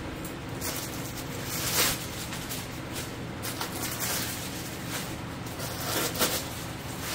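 Hands rustling and crinkling white packaging wrap while handling a leather handbag: a series of soft rustles, the loudest about two seconds in and another cluster near six seconds, over a steady low hum.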